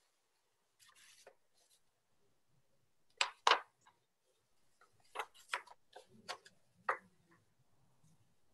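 Quiet room tone broken by scattered small clicks and knocks: two close together about three seconds in, then several more between five and seven seconds in.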